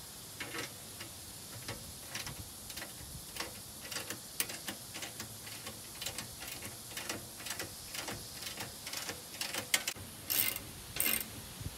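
Hand ratchet wrench clicking in short, irregular strokes as bolts are tightened on a lawn tractor's seat mount. Near the end come two longer, louder rattles of quick ratcheting.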